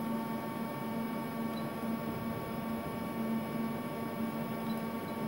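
Brother HS300 wire EDM machine running steadily: an even hum with a higher steady whine above it.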